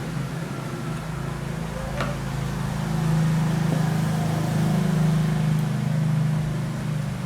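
A steady low mechanical hum that grows louder about three seconds in, with a single sharp click about two seconds in.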